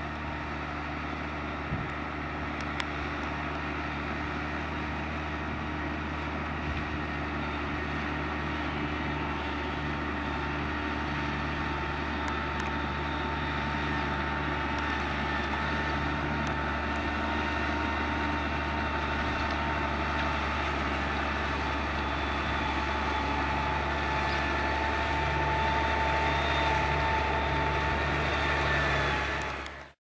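New Holland T6050 tractor's diesel engine running steadily while ploughing with a four-furrow Kverneland plough, with a thin high whine above the engine note. It grows slowly louder and stops abruptly just before the end.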